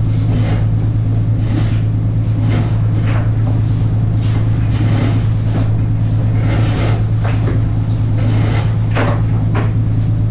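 Truck engine idling with a steady low hum, with scattered knocks and footsteps on the truck's wooden floor.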